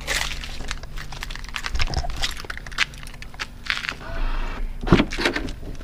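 A bunch of keys jingling in the hand with light clicks. About five seconds in comes a single thunk, as the rear door of a Tesla Model S is unlatched and opened.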